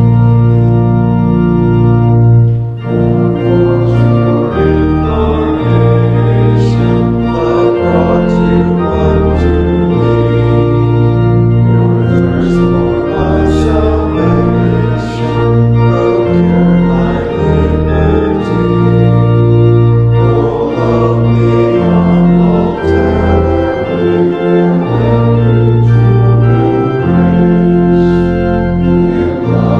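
Organ playing slow, sustained chords over deep bass notes, the harmony changing every second or two in a hymn-like progression.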